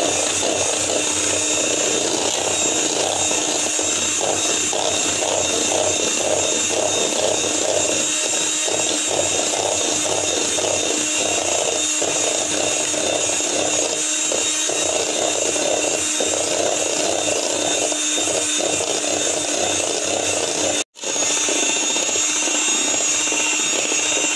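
Electric hand mixer running steadily, its beaters whipping cream made from whipping cream powder, milk and powdered sugar. The motor sound cuts out for an instant near the end and carries on.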